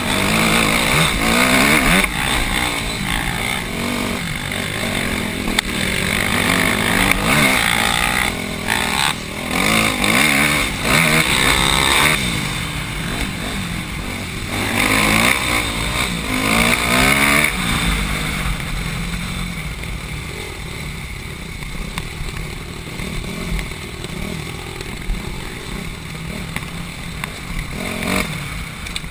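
Dirt bike engine running under load and revving up and down with the throttle over a rough dirt trail, heard from the rider's helmet camera with wind and rattle. The engine note is busiest in the middle and settles lower and steadier near the end.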